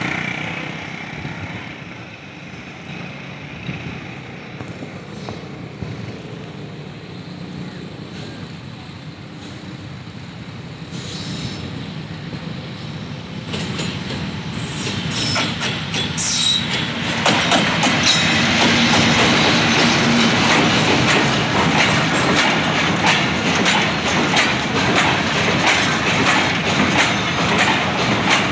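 A freight train hauled by a Pakistan Railways diesel locomotive approaches, its engine rumble growing louder through the first half. From about two-thirds of the way in, the loaded freight wagons pass close by, their steel wheels clattering steadily over the rail joints.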